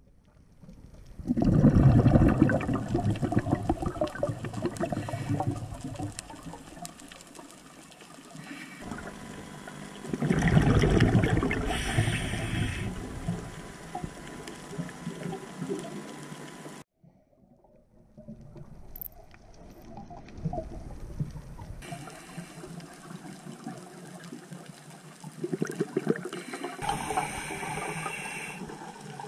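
Scuba diver's regulator exhaling underwater: a burst of bubbling every eight to nine seconds, one per breath, loudest about two seconds in and about ten seconds in.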